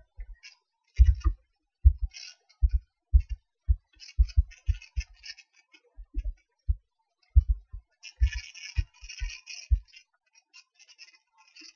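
Computer keyboard being typed on: irregular keystrokes, each a sharp click with a dull thump, with a quicker run of key clicks about eight seconds in.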